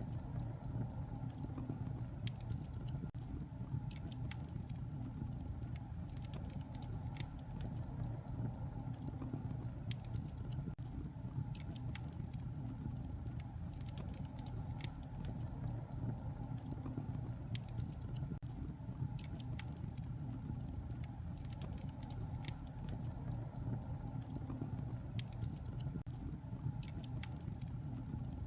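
Wood fire burning in a fireplace: a steady low rumble of flames with frequent small, irregular crackles and pops.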